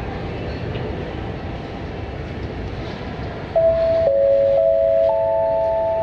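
Airport public-address chime: three tones come in one after another about three and a half seconds in, middle, then lower, then higher, each held and overlapping, signalling that an announcement is about to begin. Before it, a steady airport background noise.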